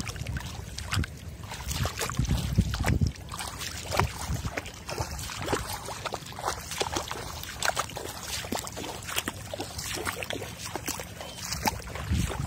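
Splashing and sloshing in shallow water with many small clicks and rustles, over a low rumble that is strongest in the first three seconds.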